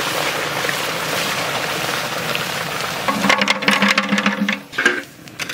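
Thick mango paste sizzling steadily as it is poured into a hot wok. About three seconds in, a metal ladle stirs it, scraping and knocking against the wok in a quick rattling run for a second or so.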